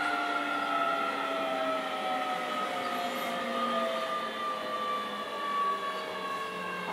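Keio 7000 series electric train heard from inside a passenger car: the traction motors whine in several tones over the running rumble, all falling slowly and evenly in pitch as the train slows.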